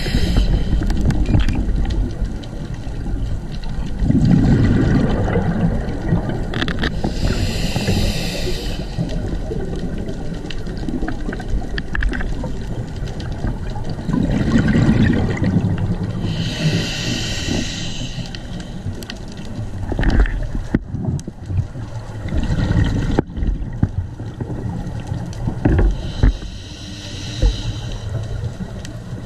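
Scuba diver breathing through a regulator, heard underwater: a hissing inhale about every nine seconds, and between the inhales the low bubbling rush of exhaled air.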